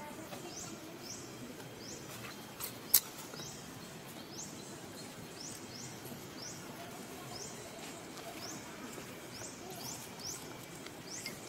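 A bird calling with short, high, rising chirps, repeated roughly once or twice a second, over a steady background hiss. A single sharp click about three seconds in.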